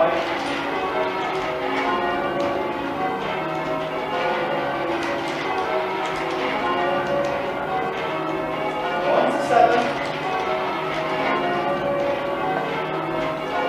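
A ring of ten church bells rung full circle in changes, the bells striking one after another in a continuous, even sequence. A brief louder burst stands out about nine and a half seconds in.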